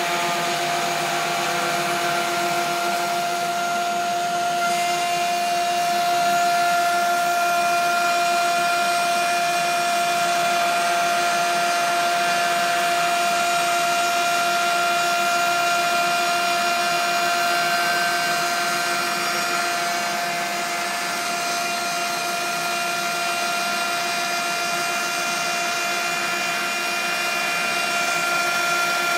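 Electric power-tool motor running steadily, with a constant whine over a rushing hiss; a few higher tones join in about five seconds in.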